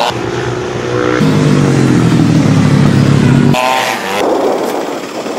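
Motorcycle engines running on a supermoto track; one engine note falls steadily in pitch. About three and a half seconds in, the sound cuts abruptly to a thinner, more distant engine sound.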